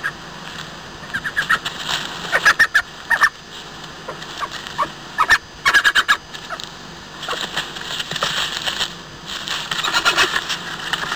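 European badger calling: several bursts of quick, rapidly repeated short calls over a steady background hiss.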